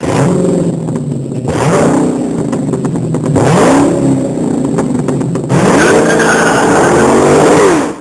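Car engine revved up and let back down three times, the last rev held high for about two seconds before falling.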